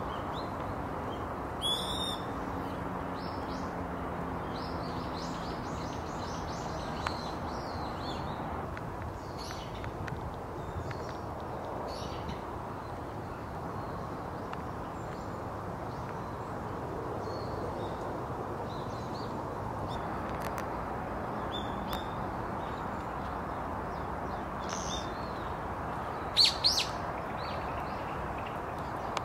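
Birds calling with short, high-pitched chirps and trills now and then over a steady outdoor rushing background, the loudest few calls near the end.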